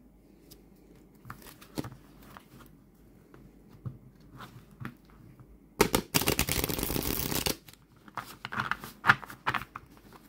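A deck of Halloween Tarot cards being shuffled by hand. Scattered soft taps and slides of cards come first. About six seconds in there is a riffle shuffle, a rapid run of card flicks lasting about a second and a half, and then more taps as the deck is gathered.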